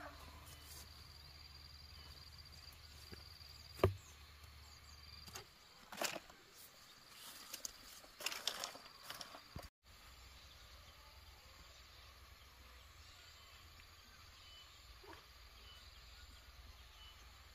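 Quiet outdoor background with faint insect chirps, broken by a sharp knock about four seconds in and a few short clattering, rustling handling sounds around the middle.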